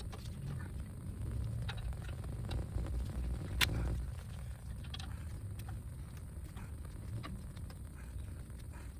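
Hand tools working on a brake assembly: scattered light clicks and taps, one sharper click about three and a half seconds in, over a steady low rumble.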